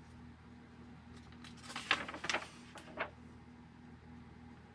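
Paper instruction booklet being picked up and its pages turned: a few short rustles of paper, the loudest about two seconds in and another about three seconds in.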